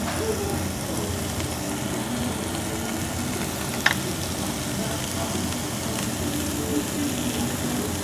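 Pork belly and rice cakes sizzling on a Korean barbecue grill plate, a steady frying hiss, with one sharp click of metal tongs about halfway through.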